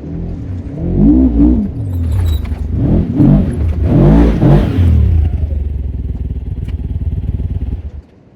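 Side-by-side UTV engine revving up and down several times as it climbs through the creek crossing, then running steadily and cutting off about eight seconds in.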